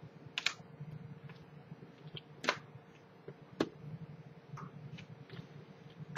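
Small sharp clicks and taps of a precision screwdriver on the screws holding a MacBook Pro's internal battery, a few isolated clicks a second or two apart over a low steady hum.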